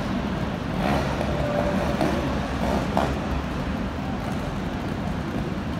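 A trials motorcycle engine running and revving lightly, heard through the steady rumble and murmur of a large indoor arena.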